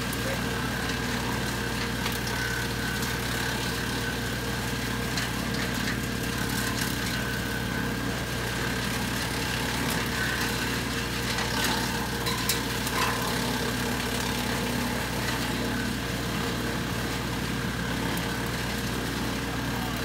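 LS XR3135 compact tractor's diesel engine running steady, driving a three-point-mounted Woodland Mills PTO wood chipper as brush and grapevine are fed through it, with a few sharp cracks of branches being chipped around the middle.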